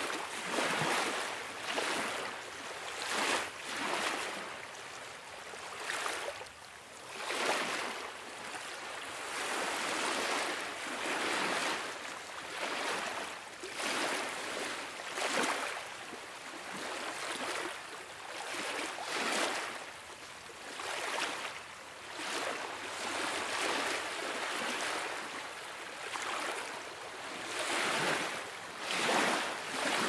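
Small waves on Lake Geneva lapping at the water's edge, a steady wash that swells and falls every second or two.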